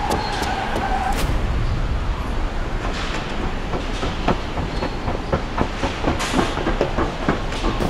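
Designed action sound effects: a continuous low rumble thick with rapid, irregular clattering and knocks, much like a train's clickety-clack.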